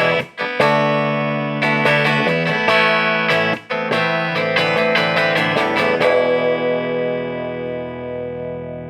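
Background music: electric guitar with effects, a run of sharply picked notes and chords, then a final chord left ringing and slowly fading for the last few seconds.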